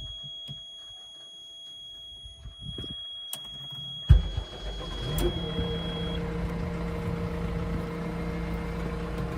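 Heavy diesel engine running at a steady speed. A loud knock comes about four seconds in, after a quieter stretch with a few faint clicks.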